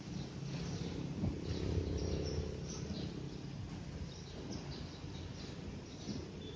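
Small birds chirping repeatedly in short high calls over a low steady rumble.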